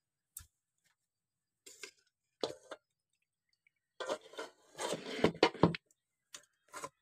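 Metal tongs clinking and scraping against an aluminium pressure-cooker pot while boiled chicken pieces are lifted out of the broth. The clatters are scattered, with the loudest and densest run about four to six seconds in.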